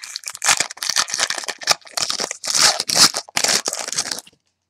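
Wrapper of a trading-card pack being torn open and crinkled by hand, a run of crackling rustles that stops near the end.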